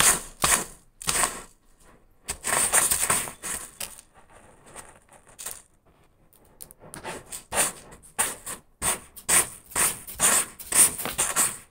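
A cat raking and scratching granular litter in a plastic litter box to bury its waste: a series of short, gritty scraping strokes, a longer scrape a couple of seconds in, a quieter pause, then quick strokes about twice a second.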